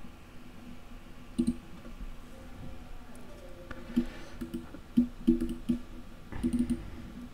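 Scattered short clicks of a computer mouse, a single one early and a quick run of them in the second half.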